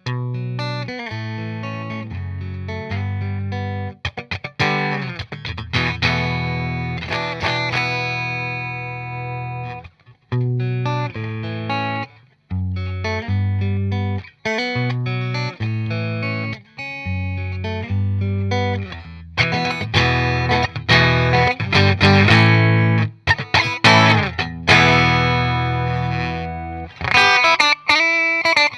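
Electric guitar played through a Fender '65 Deluxe Reverb tube combo amp, miked with a Shure SM58: strummed chords and single notes left to ring, with a few short breaks between phrases.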